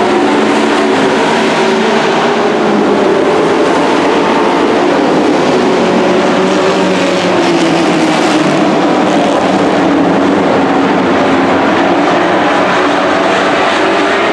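Several race-truck engines running hard around a dirt oval, their notes overlapping and wavering steadily as the trucks lap.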